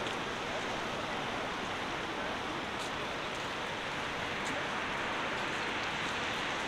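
Steady downtown street noise: an even, continuous hiss of city sound with no distinct events standing out.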